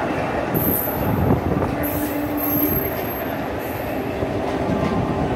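Indian Railways passenger train coaches rolling past on a nearby track, a steady rumble of wheels on rail with brief high-pitched wheel squeals coming and going.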